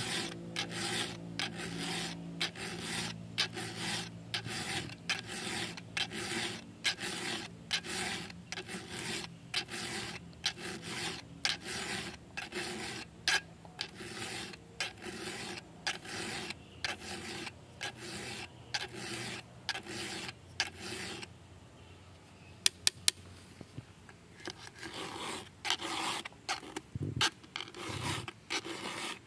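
Round chainsaw file rasping back and forth across the cutter teeth of a chainsaw chain, about two strokes a second. About twenty-one seconds in the filing pauses, with a few sharp clicks, and then resumes for the last few seconds.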